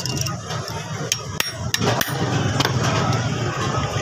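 Small hammer tapping a screwdriver against the crimped metal rim of a car horn, a handful of sharp metallic taps in the first two seconds, to bend the edge open and free the diaphragm plate.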